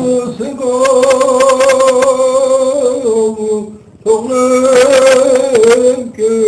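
A man singing solo, holding long wavering notes with vibrato in two phrases, with a short break about four seconds in.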